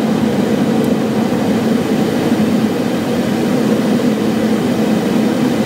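Steady cockpit noise inside a twin-turbofan Cessna Citation Excel business jet in descent on approach: an even rush of airflow with a low engine drone, unchanging throughout.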